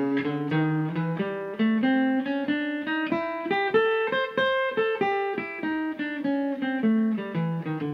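Steel-string acoustic guitar picking the A MixoBlues scale one note at a time with a swing feel, climbing note by note to a peak about halfway through and then running back down.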